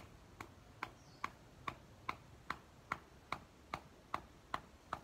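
Wooden garden stake being knocked into the soil, struck on its top with a small hand-held block: a steady run of sharp knocks, about two and a half a second, growing louder over the first couple of seconds.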